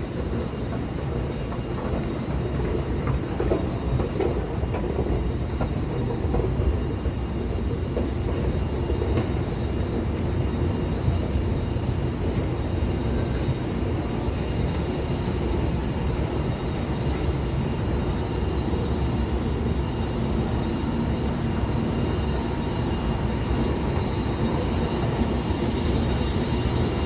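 Steady low rumbling noise of a running vehicle, unbroken throughout.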